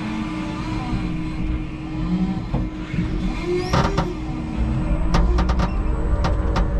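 Electric forklift running: a steady motor hum with a low whine that shifts in pitch as the truck moves back from the load. There is a sharp knock a little over halfway, then a quick series of clicks and knocks near the end.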